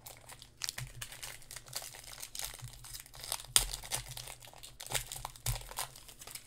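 Foil wrapper of a Mosaic basketball card pack crinkling and tearing as it is pulled open by hand, in a rapid irregular crackle with two sharper crackles, one midway and one near the end.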